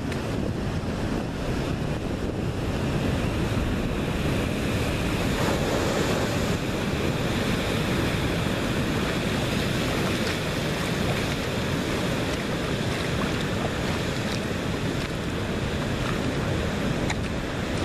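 Steady wash of sea surf breaking over a rocky reef, with wind rumbling on the microphone.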